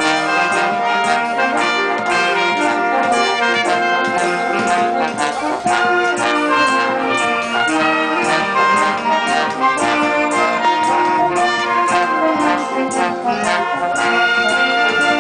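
Wind band playing a piece: clarinets, saxophones and brass in held chords over a double bass, with a steady beat.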